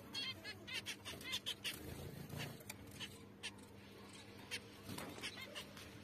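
Small aviary finches, zebra finches among them, giving short high chirping calls, many in quick succession in the first half and a few spaced ones later, over a faint steady hum.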